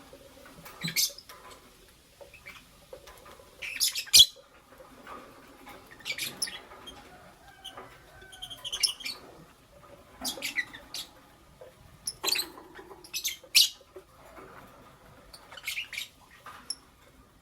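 Pet lovebirds chirping: short, sharp, high-pitched calls in irregular clusters every second or two, with soft chatter between, and one sharp click about four seconds in.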